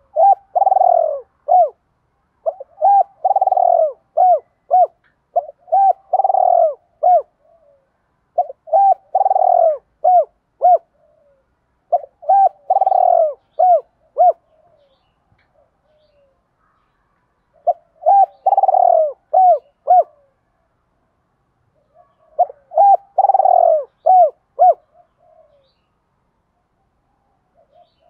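Spotted dove cooing its challenge call over and over: about seven phrases of several short coos each, a second or more apart, with a longer pause near the middle. It is the fighting call of a decoy bird, used to goad other doves into answering.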